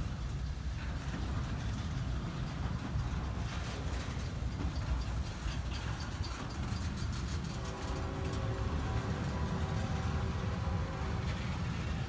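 CSX freight train running past with a steady low diesel locomotive rumble and faint clicking of wheels. A steady chord of several tones joins in about two-thirds of the way through.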